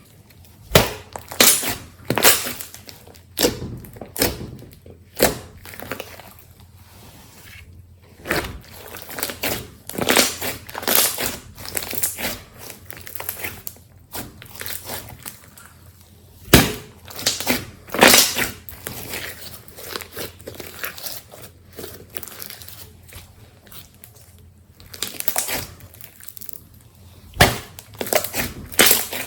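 Slime being squeezed and pressed by hand, making irregular sticky clicks, pops and crackles, some loud and sharp, with short pauses between handfuls.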